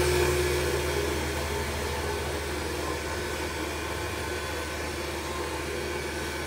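Belt-driven spindle of a CNC-converted Grizzly G0704 benchtop mill spinning at about 4,500 rpm, its motor driven by a VFD at 90 Hz: a steady machine hum and whir that eases slightly in the first couple of seconds.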